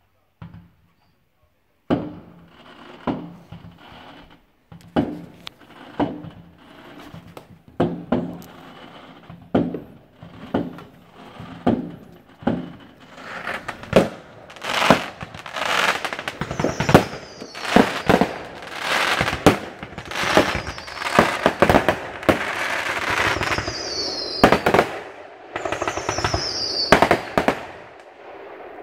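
Fireworks going off: after a near-silent start, a first sharp bang about two seconds in, then single bangs roughly a second apart. In the second half they build into a dense, near-continuous barrage, with several high falling whistles near the end.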